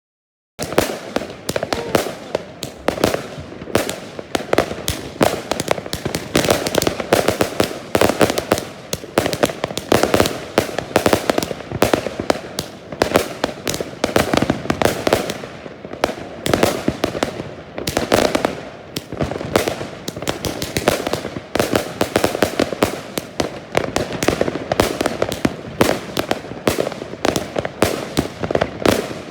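Svea Fireworks Spartacus battery cake firing, a dense, continuous barrage of shots and bursts that starts abruptly about half a second in and keeps on at a fast, uneven tempo.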